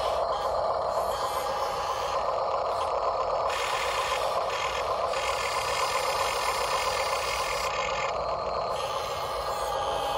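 Radio-controlled scale model construction vehicle running, its electric motors and gearboxes whirring steadily.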